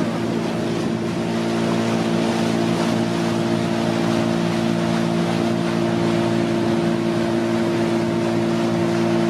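Motorboat engine running at a steady, unchanging speed, with a continuous rush of water and air as the boat cruises.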